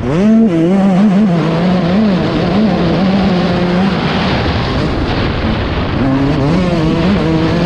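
Yamaha YZ 144 two-stroke motocross engine heard from the rider's helmet, snapping up in revs right at the start, then rising and falling with the throttle. For a few seconds in the middle the engine note is partly buried in a rush of noise; it comes back clearly near the end.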